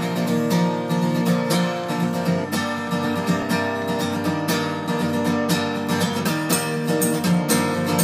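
Background music: an acoustic guitar strummed in a steady rhythm, with no singing.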